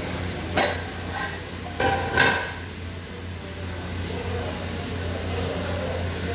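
Aluminium saucepan and lid clanking: about four sharp metallic knocks in the first two seconds or so as the lid comes off and is set down, over a steady low hum.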